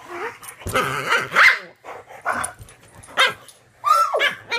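Cavalier King Charles Spaniel and Bluetick Coonhound play-fighting, giving a run of short barks and yelps, with a high falling whine about four seconds in.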